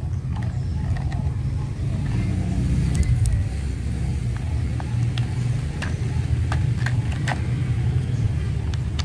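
Sharp plastic clicks and snaps as rotor blades and a landing skid are fitted to a plastic toy helicopter, most of them in the second half. Under them runs a steady low rumble.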